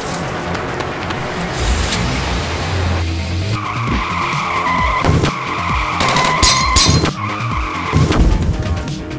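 Car tyres squealing in a long skid from about three and a half seconds in, over engine noise, with a few sharp hits during the skid.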